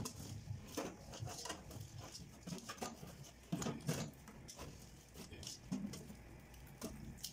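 Hands squeezing and kneading wet grated coconut in a metal bowl, a run of irregular short strokes as the coconut milk is pressed out.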